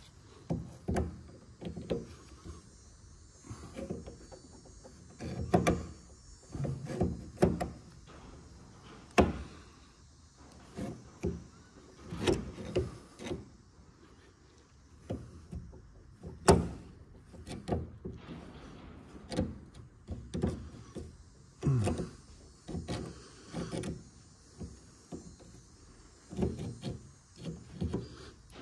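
Slip-joint pliers gripping and working a metal tab on the edge of an aluminium radiator: irregular clicks, knocks and short metal creaks and scrapes, with one sharp click about sixteen seconds in.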